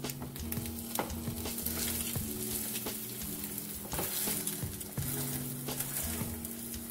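Egg omelet frying in a nonstick pan with a steady sizzle. A slotted metal spatula presses and shifts it, making light scrapes and taps against the pan several times.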